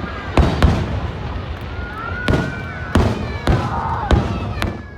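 Aerial fireworks bursting in a rapid irregular series of sharp bangs, about seven in five seconds, over a continuous low rumble from the display.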